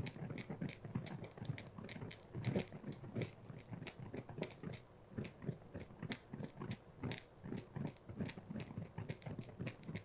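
Burning plastic strip sputtering as it drips flaming droplets: a fast, irregular run of faint crackling pops and buzzes, several a second.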